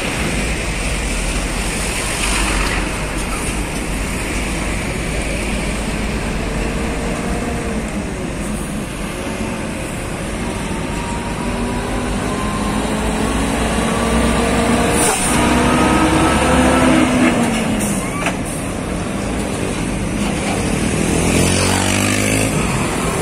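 Volvo FM12 heavy-haul tractor's straight-six diesel engine labouring under a 98-ton transformer load, its pitch climbing in a few steps as the rig pulls away. A brief air-brake hiss comes near the end.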